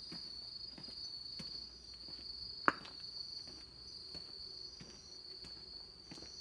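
Insects trilling in a steady, unbroken high chorus, with footsteps at a walking pace underneath and one sharp click about two and a half seconds in.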